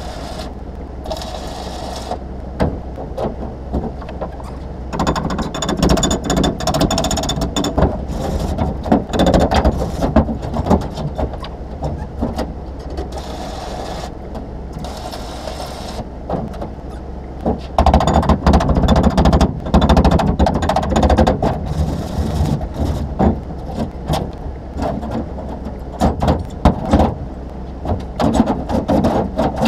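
Electric arc welding crackling and sizzling in long runs, the heaviest starting about five seconds in and again around eighteen seconds in, over a steady low hum. A few sharp knocks near the end.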